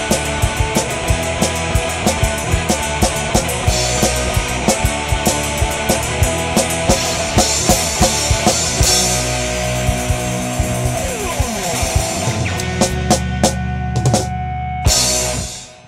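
Rock theme music with a fast, steady drum beat, cutting off abruptly near the end.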